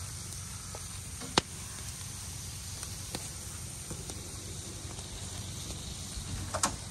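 Shredded beef sizzling in a cast-iron skillet over a campfire, a steady hiss with a sharp click about a second and a half in and a few fainter clicks after.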